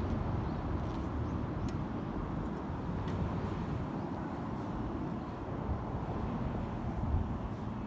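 Yamaha XSR900's inline-three engine idling steadily through an SP Tadao Power Box full exhaust system, with no revving.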